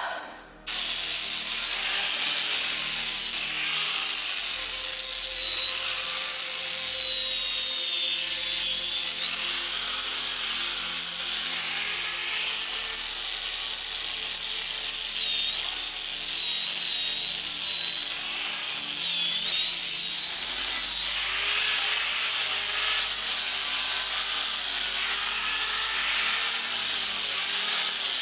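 Corded electric angle grinder fitted with a sanding disc, starting up about a second in and then running steadily while it sands old paint off painted wooden floorboards. Its high whine wavers up and down in pitch as the disc is pressed into the wood and moved over the boards.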